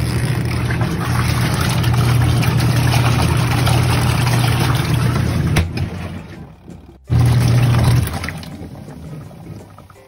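Twin-tub portable washing machine's wash motor running, its pulsator churning the rinse water and clothes: a steady motor hum with water noise. It fades about six seconds in, comes back loud for a second, then fades again.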